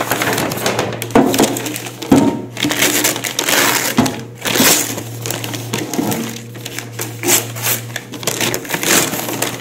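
Gift wrapping paper being torn and crumpled by hand, an irregular crackling rustle that goes on and off, over a faint steady low hum.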